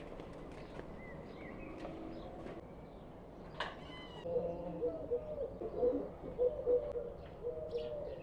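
Backyard ambience with small birds chirping. From about halfway in, a dove coos in a run of repeated low notes, the loudest sound here.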